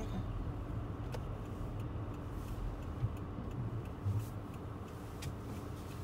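Inside a car driving slowly over a snow-covered street, a steady low engine and tyre rumble with a few scattered clicks and knocks.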